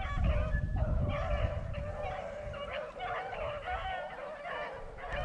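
Beagles baying in overlapping, drawn-out cries, several voices at slightly different pitches: rabbit hounds giving tongue as they run a rabbit's scent trail.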